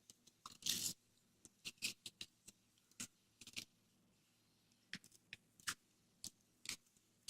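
Faint scattered clicks, taps and short rustles from padlocks and their paper wrapping being handled.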